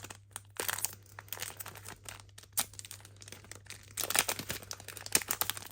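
Foil trading-card booster pack wrapper crinkling as it is handled and opened: irregular crackles that grow busier about four seconds in.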